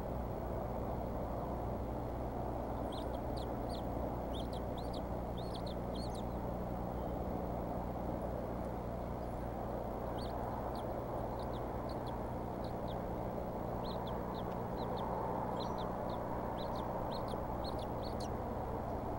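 Bald eaglets peeping while being fed, in quick runs of short high chirps: one run a few seconds in, another from about halfway to near the end. Underneath runs a steady background rush with a low hum.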